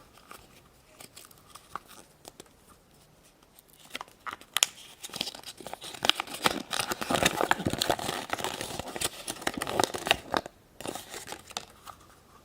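Toy packaging being crinkled and torn open by hand. It starts about four seconds in with sharp crackles, then runs on as dense crinkling and tearing before fading near the end.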